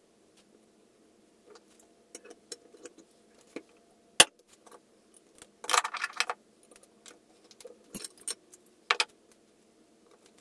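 Metal clicks and clinks from a valve spring compressor being worked on a Porsche M96 cylinder head, as the lever presses a valve spring down and small metal parts tap against each other. A sharp click comes about four seconds in, a burst of clinking around six seconds, and a few more clicks near eight and nine seconds.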